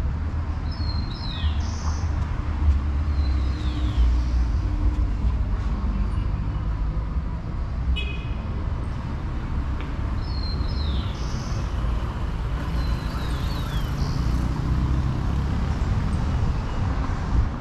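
Street traffic: vehicle engines running close by with a steady low rumble. A pair of short high descending chirps sounds near the start and again about ten seconds later.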